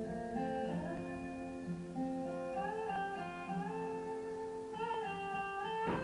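Background music: an acoustic guitar playing a slow melody of sustained plucked notes.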